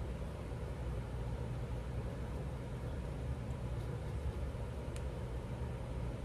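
Steady low background hum with a faint hiss, and one faint click about five seconds in.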